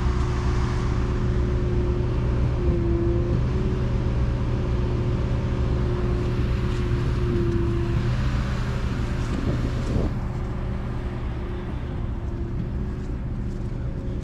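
Ford 7.3 L Godzilla V8 gasoline engine of a Reed B50G concrete pump running steadily under load while pumping concrete. It makes a constant hum, with a higher tone that swells briefly every few seconds.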